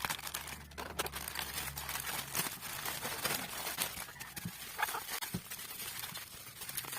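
Irregular rustling with scattered clicks and taps: packaging being handled and opened during an unboxing.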